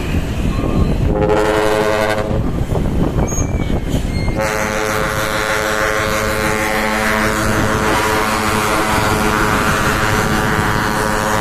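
Dump truck's trumpet air horns sounding: a short blast about a second in, then a long steady blast from about four seconds in.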